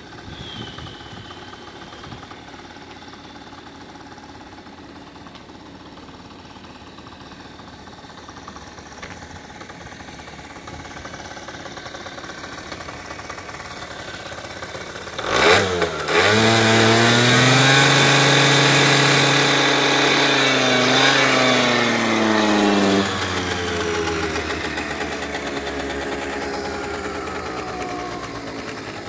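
Suzuki Sepia scooter's 50cc two-stroke engine, fitted with an aftermarket muffler, idling, then given a sharp throttle blip about halfway through and held at high revs for several seconds. The revs then drop suddenly and fall away slowly toward idle.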